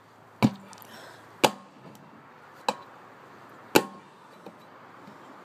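Sharp chopping blows struck by hand, one roughly every second, four in all with a fifth at the very end.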